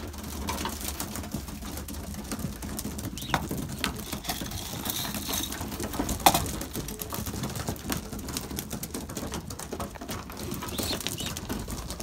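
Young racing pigeons making low calls and moving about a loft, with many scattered small taps and clicks and one sharper knock about six seconds in.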